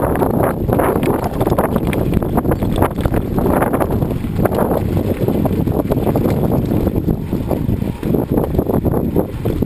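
Wind noise on the microphone over the crunch and rattle of bicycle tyres rolling on a gravel road, a steady rough rumble with many small irregular clicks.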